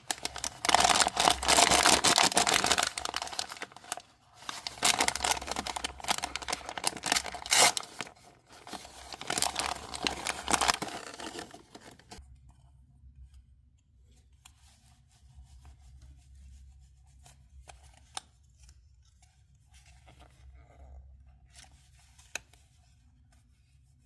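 Plastic packaging being torn and crinkled open, in three loud bouts over about the first twelve seconds, followed by quieter rustling and handling.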